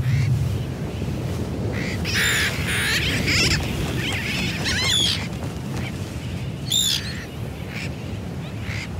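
Sooty terns calling: a series of sharp, wavering calls, loudest between about two and five seconds in, over a steady low rumble.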